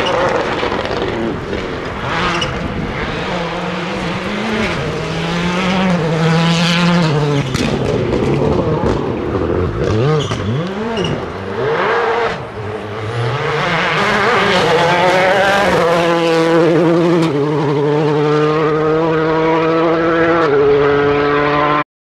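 2.0-litre turbocharged World Rally Car engine running hard on a stage, revs rising and falling with gear changes and lifts, then holding in steps near the end before the sound cuts off suddenly.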